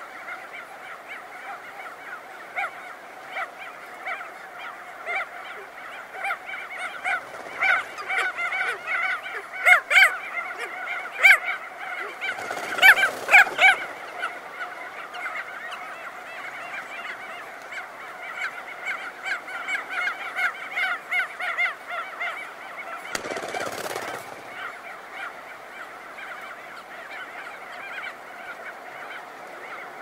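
Crested auklets calling close up: a dense, continuous chorus of rapid pulsed honking calls, louder and busier from about a quarter to halfway through. Two brief rushes of wingbeats from birds emerging from their burrows, one about halfway through and one about three-quarters of the way through.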